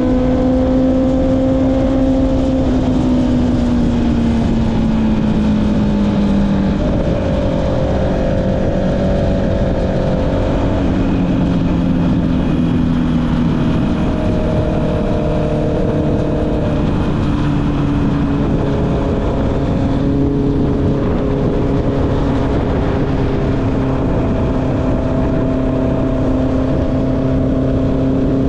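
Honda CB650R's inline-four engine through an Akrapovic exhaust, heard while riding. The engine note sinks slowly, then shifts in pitch several times, over steady wind and road noise.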